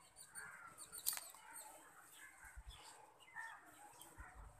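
Faint bird calls in the background, with a sharp click about a second in.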